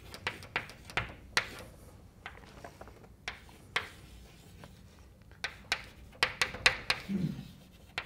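Chalk writing on a blackboard: an uneven series of sharp taps and short scratchy strokes as symbols and letters go up, with a brief low voice sound about seven seconds in.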